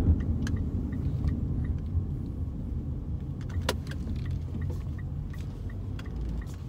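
Road and engine noise inside a moving car's cabin: a steady low rumble, with a light regular ticking about three times a second and a single sharp click a little past halfway.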